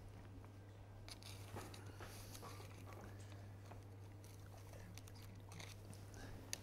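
Faint, scattered clicks and rustles of a round metal pastry cutter pressing puff pastry rounds out on baking paper, over a steady low hum.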